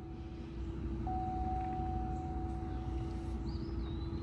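Car engine idling steadily, a low hum with a constant tone over it, in a car with a random/multiple-cylinder misfire (code P0300).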